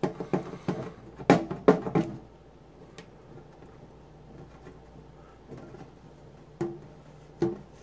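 Fingernail picking and scraping at a paper barcode sticker on a thin metal lunch-box tin: a run of sharp clicks and scratches in the first two seconds, quieter after that, with two short knocks against the tin near the end.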